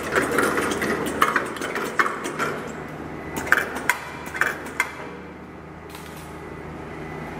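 Stainless-steel weight-sorting machine for chicken feet running: sharp metallic clacks and clinks at irregular intervals over a low steady hum. The clacks stop about five seconds in, leaving only the quieter hum.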